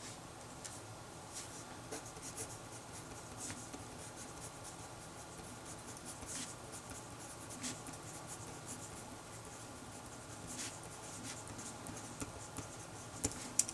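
Handwriting with a pen: faint, irregular scratching strokes with a few small taps.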